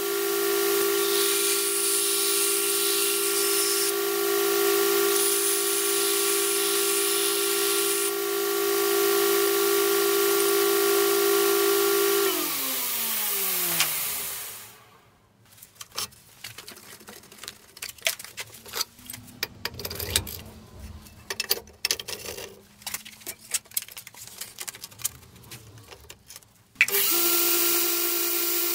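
Large home-built 2x160-inch belt grinder running with a steady hum and belt hiss; the hiss grows sharper twice during the first eight seconds. About twelve seconds in it is switched off, and its pitch falls as it coasts to a stop. Quiet clicks and knocks follow, then the grinder is switched on again near the end and comes straight back to its steady running sound.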